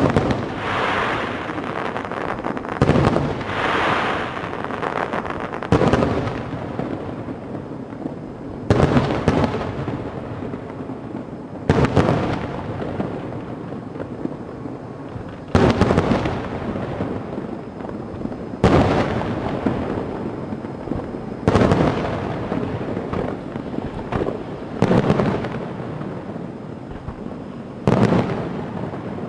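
Fireworks shells bursting in the sky, about ten loud bangs at roughly three-second intervals, each followed by a fading rumble that echoes away.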